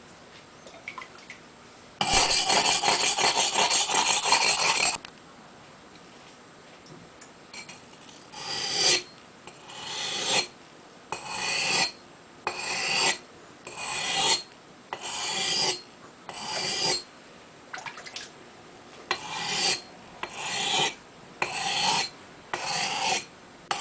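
An axe edge being ground on a wet whetstone: about three seconds of loud continuous scraping, then a steady run of separate strokes, roughly one a second, each swelling and stopping sharply. The nicks in the edge are already ground out and the edge is being sharpened.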